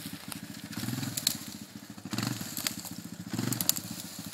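Two-wheel-drive Honda ATV engine running at low revs and picking up in short throttle surges about three times, with brush and twigs crackling and snapping under the machine.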